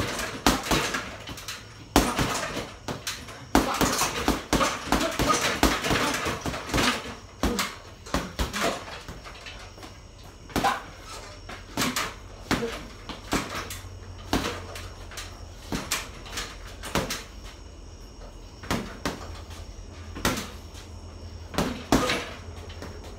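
Boxing gloves punching a hanging heavy bag: a dense run of thuds in the first seven seconds, then single punches and short combinations every second or two.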